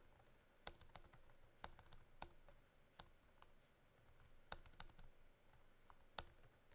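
Faint keystrokes on a computer keyboard: a scattered dozen or so clicks at irregular spacing, with a quick run of several about halfway through, as a short word is typed, partly deleted and retyped.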